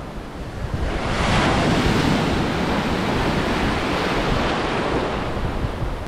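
Sea surf: a small wave breaking and washing in over rocks and shallow sand, the rush swelling about a second in and easing off near the end.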